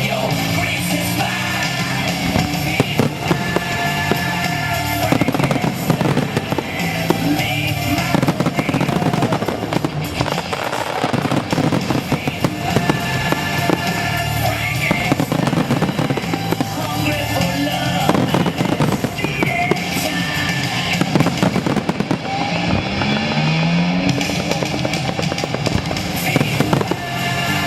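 Fireworks exploding in rapid, overlapping bangs and crackles over a loud musical soundtrack, the music of a pyromusical show.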